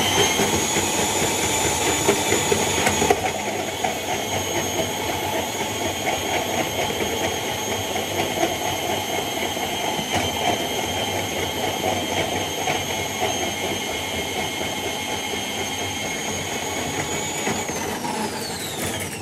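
K-45 electric drum drain snake running in a blocked shower drain, its motor whining steadily as the cable turns. Near the end the motor winds down and stops.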